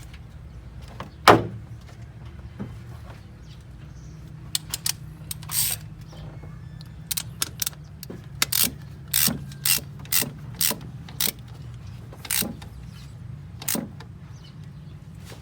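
Irregular sharp clicks and clanks of car repair work, a loud one a little over a second in and a busy cluster in the middle, over a steady low hum.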